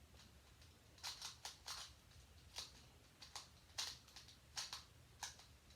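Plastic Rubik's cube being turned by hand: faint clicks of the layers snapping round, about a dozen in uneven runs, starting about a second in.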